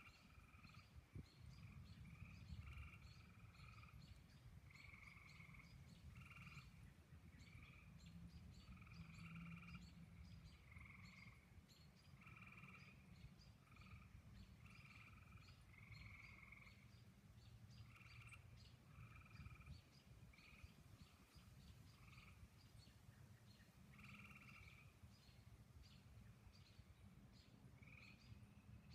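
Faint frog calls: short trills of about half a second, repeating every second or so without a set rhythm, over a low steady rumble.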